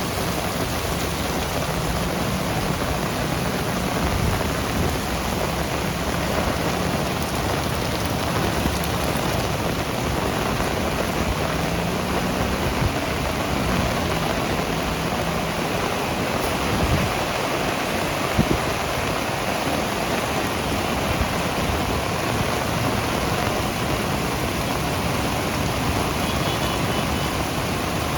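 Heavy rain falling steadily, a dense even hiss, with a few sharp drops or taps standing out about two-thirds of the way through.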